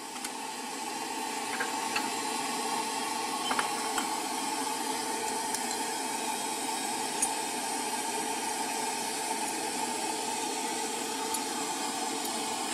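Steady rushing hiss of a gas burner under a noodle pot on a street-food cart, with a few faint clinks of a spoon against porcelain bowls.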